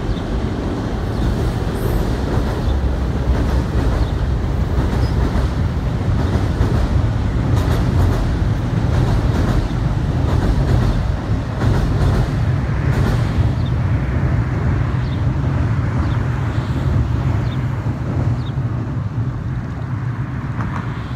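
NJ Transit electric push-pull passenger train of multilevel coaches rumbling steadily across a steel trestle bridge, with scattered sharp clacks from the wheels over the rail joints. The rumble eases slightly near the end as the train draws away.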